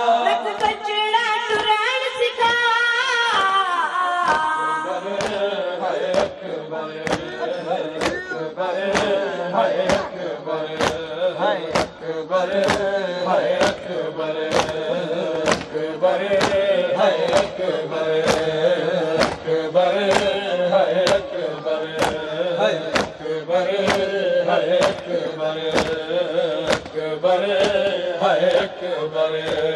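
Noha, a Shia lament, sung by a boy reciter with young men joining in, over a steady rhythm of open-hand chest-beating (matam) slaps.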